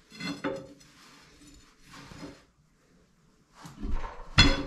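Heavy steel plates and tools clanking and scraping against one another while the machine is shifted on the plates. There are a couple of short ringing knocks at first, then louder clattering, with one sharp, loud metal clank near the end.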